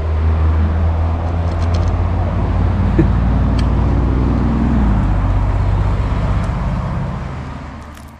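Motor vehicle traffic on a nearby mountain pass road: a loud, steady low engine hum whose pitch shifts as a vehicle passes about halfway through, fading out near the end.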